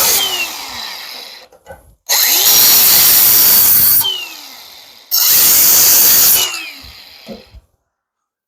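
Handheld grinder with a cut-off wheel cutting into steel frame metal in repeated bursts of a second or two. After each cut its whine falls away as the wheel spins down.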